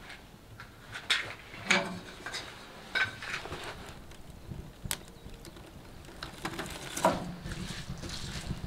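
Kindling burning in the open firebox of a small metal tent stove, crackling with scattered sharp pops and knocks.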